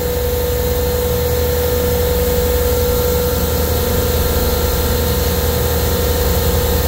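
Supermarket refrigeration compressor rack running: a steady machine drone with one constant hum over a low rumble, as the rack pumps the liquid line down to vapor.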